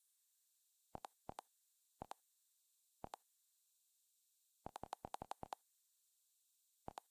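Faint, short interface clicks from the Android TV menu, one for each step as the selection moves across the channel tiles. Single clicks come about a second apart, then a quick run of about eight around five seconds in, and one more near the end.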